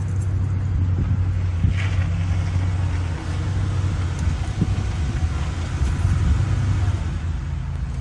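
Steady low hum of an idling engine, with a few faint handling clicks and a brief rustle about two seconds in.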